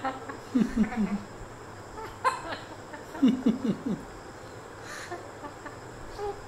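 African grey parrot mimicking a person's laugh, 'ha-ha-ha', in two bouts of short low chuckles: one about half a second in and one about three seconds in, with a short sharp higher call between them.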